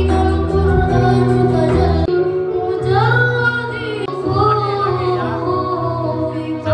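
Music with a woman singing a melody of held notes over instruments; the bass drops out abruptly about two seconds in and comes back shortly after.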